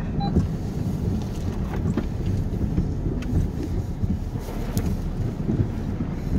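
Volkswagen Tiguan heard from inside the cabin while driving a rough forest road: a steady low rumble of engine and tyres, with a few scattered light knocks from the bumps.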